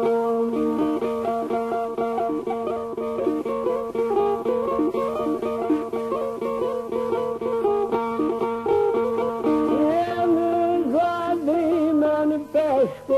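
Albanian folk music on the çifteli, the two-stringed plucked long-necked lute: one string holds a steady drone while the other picks out a quick, busy melody. Near the end a wavering, ornamented vocal line comes in over it, in the rhapsodic singing style of northern Albania.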